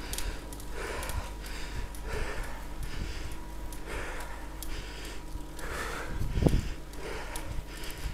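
A cyclist panting hard and rhythmically, about one breath a second, from the effort of climbing a steep hill, over a steady low rumble.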